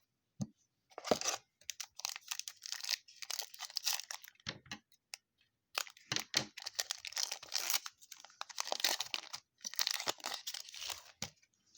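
A trading card pack's wrapper being torn open and crinkled by hand, in several bouts of tearing and rustling with short pauses between them.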